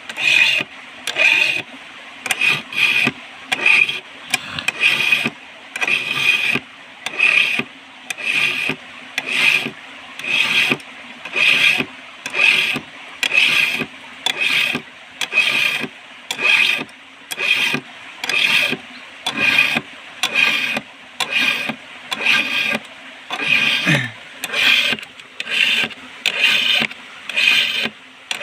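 Chainsaw chain being sharpened by hand with a file: even rasping strokes across the cutters, a little more than one a second, with brief pauses between strokes.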